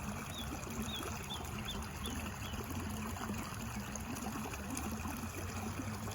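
Outdoor park ambience: a steady rushing hiss over a low hum, with a bird chirping about six times in quick succession during the first few seconds.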